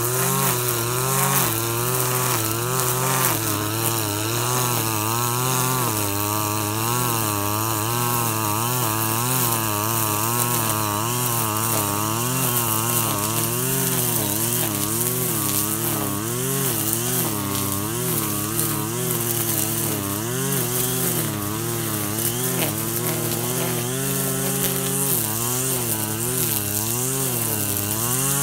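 KAAZ URP260AL-TB26 brush cutter's 25cc engine running at high revs while cutting grass, its pitch wavering up and down about once a second.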